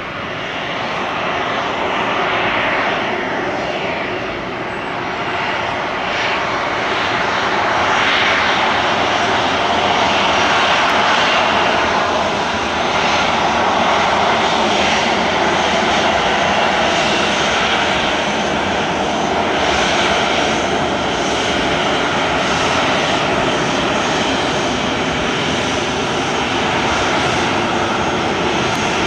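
Ryanair Boeing 737-800's CFM56 turbofan engines running at taxi power as the jet rolls slowly along the runway: a steady engine noise that grows somewhat louder over the first several seconds and then holds.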